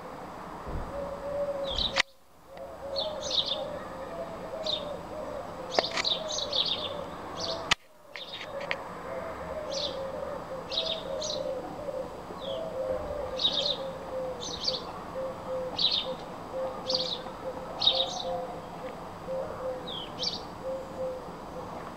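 Birds calling: short high chirps repeating about once a second over a lower, faster run of short cooing notes. The sound cuts out abruptly for a moment twice, about two and eight seconds in.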